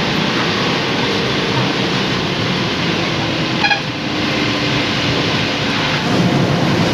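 Steady running noise of a city bus heard from inside the cabin: engine and tyres on a wet road. A brief high beep sounds a little past halfway.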